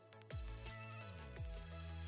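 Background electronic music with a beat. A deep bass note slides down in pitch about half a second in, and again near the end.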